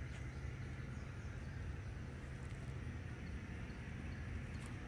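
Steady low rumble of outdoor background noise, with no firecracker reports.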